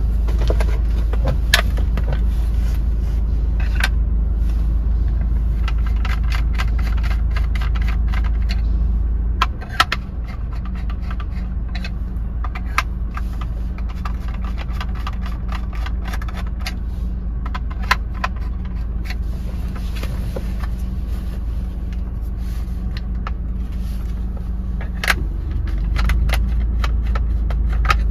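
Clicks, taps and rattles of a car-stereo mounting frame and its wiring being handled in the dash opening, over a steady low rumble.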